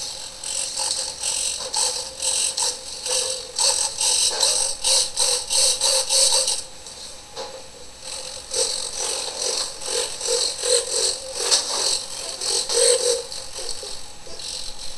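Radio-control servos in a foam park-jet model whirring in short, quick bursts as they swing the ailerons and elevators during a control check. The servo noise drops off about six and a half seconds in and picks up again about two seconds later.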